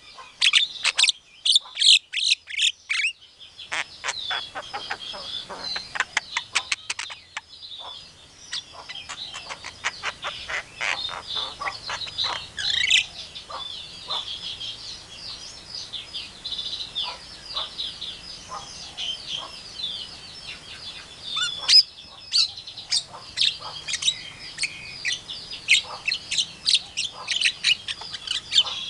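A caged Javan myna (jalak kebo) sings a long, varied string of chirps and whistles. A few seconds in it gives a burst of rapid clicking.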